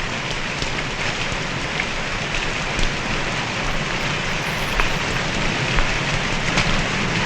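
Steady heavy rain falling and pattering on surfaces, with a few scattered sharp drip ticks.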